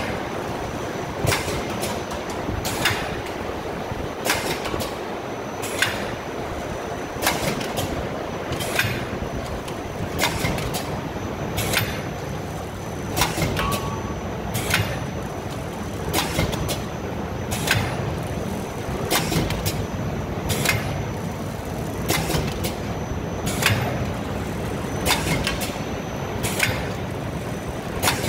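Flavoured-tobacco pouch packing machine running, a sharp mechanical clack about every one and a half seconds as it cycles through each pouch, over a steady motor hum.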